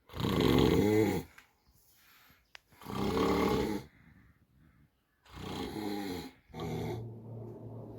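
A man snoring loudly in his sleep: four long pitched snores of about a second each, the last two coming close together.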